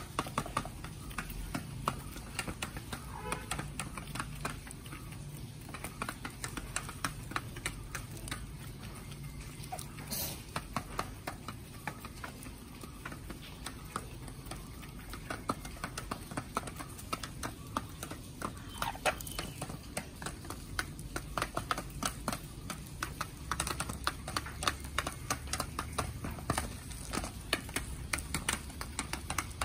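Chickens pecking feed from a pan feeder: a quick, irregular patter of beak taps that keeps up throughout.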